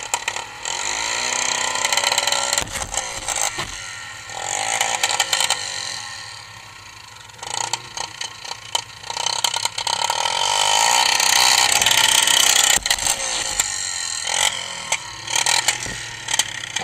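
ATV engines revving up and falling back again and again while the quads churn through a muddy, water-filled creek bed, with knocks and rattles from the machines.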